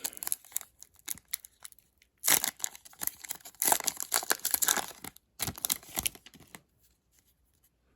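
A foil hockey card pack wrapper being torn open and crinkled, in three bursts of tearing and crinkling starting about two seconds in.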